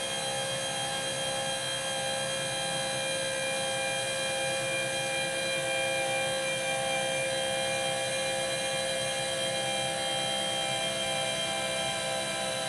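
Two 12-volt DC motors of a motorized workbench lift running together, a steady whine of several constant pitches, as they raise the table surface toward full height.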